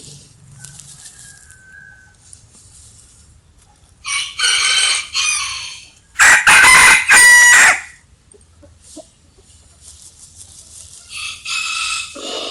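Rooster crowing: a crow about four seconds in, then a much louder crow right after it, and another starting near the end. Hens cluck faintly between the crows.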